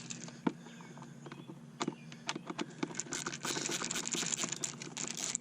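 Hand work on a car's plastic A/C blower cover as its last screw comes out and the cover is worked loose: a few sharp clicks, then from about three seconds in a dense run of scratching and clicking plastic.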